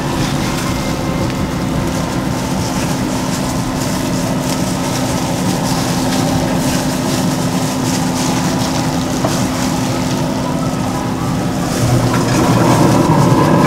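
Wood pellet grill running, its fan giving a steady mechanical hum with a constant low tone; it grows a little louder near the end.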